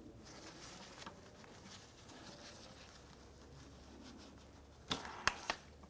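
Gloved hands working a plastic electrical connector off a transmission vehicle speed sensor: faint rustling and small plastic clicks, with a few sharper clicks near the end.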